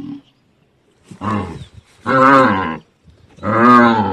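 A cow bellowing in distress: three long, loud calls about a second apart.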